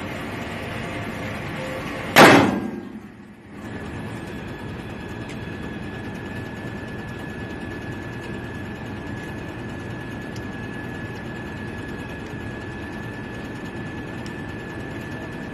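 A single shot from a Taurus .38 revolver about two seconds in, sharp and loud, after which the background briefly drops away. Otherwise steady background noise with a faint high steady tone.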